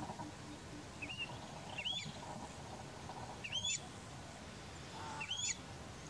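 A bird calling: four short, sharp whistled notes that flick up in pitch, spaced one to two seconds apart, over a steady background hiss.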